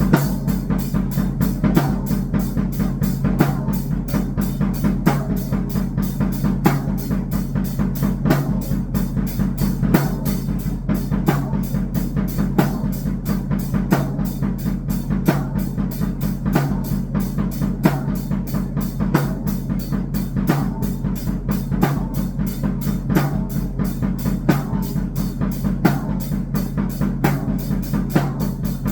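Electronic noise music with drumming: a fast, even stream of drum-like hits over a steady low drone, with a stronger hit about every second and a half.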